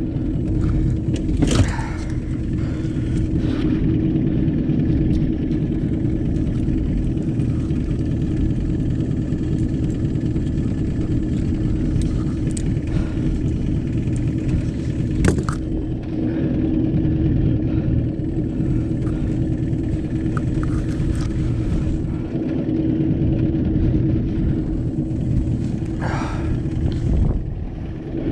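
Boat motor running steadily with a low rumble and a constant hum, with a few sharp knocks and some rustling of gear close to the microphone.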